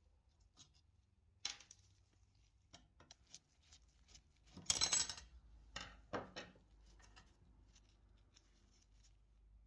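Screwdriver working a slotted screw on the antique doctor's scale's metal lever linkage, with small clicks, then metal parts scraping and clinking as the lever is handled. The loudest moment is a short metallic scraping rattle about halfway through.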